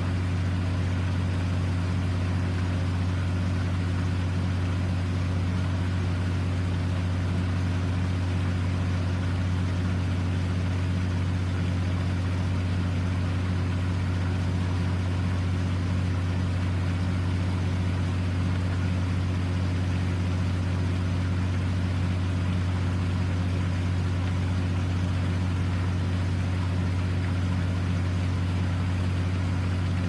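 Fishing boat engine idling steadily, an even low-pitched running sound that does not change.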